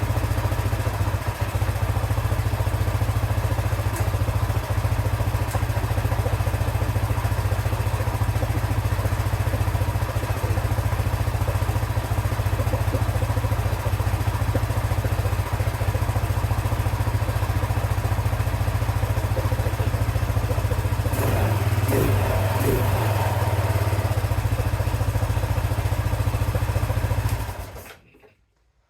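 2007 Arctic Cat 650 H1 ATV's single-cylinder four-stroke engine idling steadily, with its carburetor air screw just adjusted to cure a tick at idle; no ticking is heard. It stops abruptly near the end.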